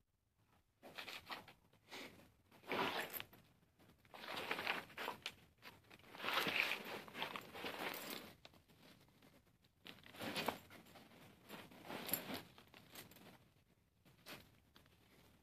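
A German Shepherd and a kitten wrestling on a bed: bedding rustling and scuffling in irregular bursts every second or two.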